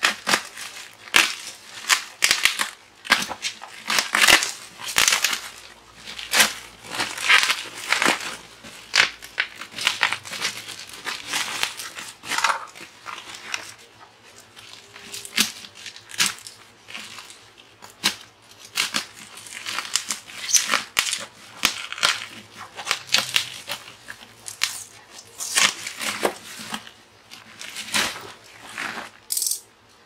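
Plastic packing wrap and tape being torn and crumpled by hand while a parcel is unwrapped, in irregular crinkling and tearing bursts.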